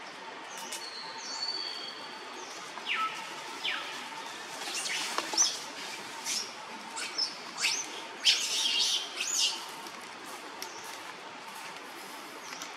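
Birds chirping and calling: a run of short, high-pitched chirps and whistled notes over a faint steady background, busiest in the middle.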